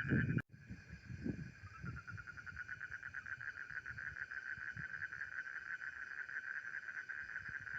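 Frogs calling in a steady, fast pulsing trill, about ten pulses a second, which the camper finds a strange sound. The sound cuts out briefly about half a second in, then carries on unchanged.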